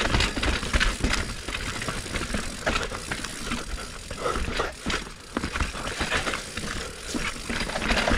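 Steel hardtail mountain bike (2020 Norco Torrent HT S2) rattling down a rough, wet trail: a dense, irregular clatter of chain and frame over roots and rocks, over a steady low rumble.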